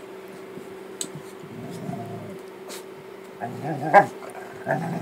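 Dogs play-growling and snarling in short rough bouts while wrestling, about two seconds in and again in the second half, the loudest a brief sharp outburst about four seconds in.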